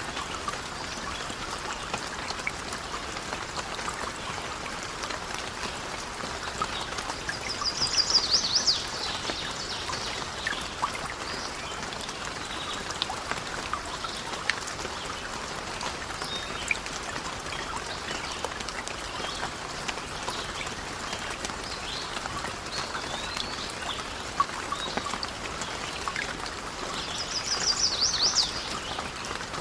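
Steady rain with many small scattered ticks and drips. Twice, about 8 s in and again near the end, a short high trilling call rises above the rain, most like a bird.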